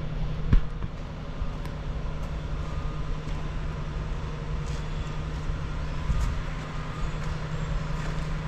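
A vehicle engine running steadily with a low hum, with a sharp click about half a second in.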